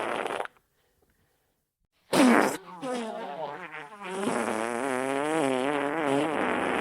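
Wet farts: one trails off about half a second in, then after a second and a half of silence a loud sudden blast breaks into sputtering and runs into one long wavering fart.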